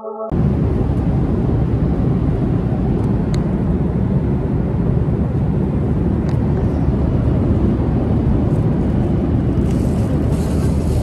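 Steady, loud low rush of engine and airflow noise inside a Boeing 737's cabin in flight. It cuts in abruptly just after the start.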